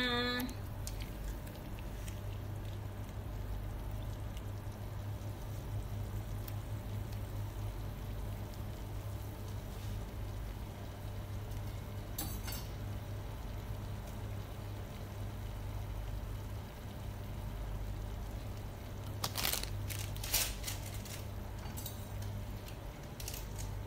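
A pot of leafy greens boiling on a lit gas burner: a steady low hum and hiss with bubbling. There is one sharp click about halfway through, and a few sharp rustles and clicks near the end as seasoning sachets are handled.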